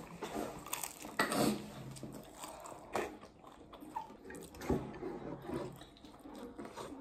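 A person biting and chewing dumplings close to the microphone, with a few short clicks from the chopsticks and a metal spoon.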